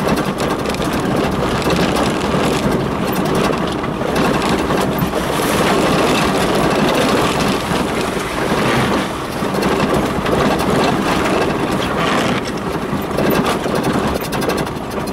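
Vehicle engine running steadily while the vehicle drives along a rutted dirt track, with rumble and buffeting throughout.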